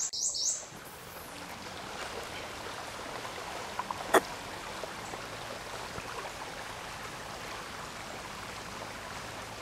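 Steady trickle of flowing creek water. A bird chirps rapidly in the first half second, and there is a single sharp click about four seconds in.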